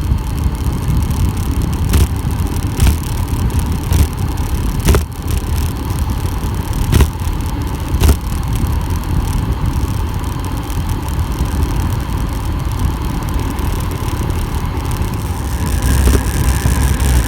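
Wind buffeting the microphone of a camera on a bike descending a mountain road: a steady, loud rushing rumble, broken by about six sharp knocks, getting louder near the end.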